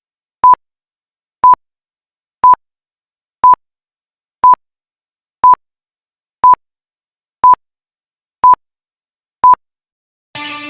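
Ten short, identical electronic beeps of one steady pitch, one each second. Music starts just before the end.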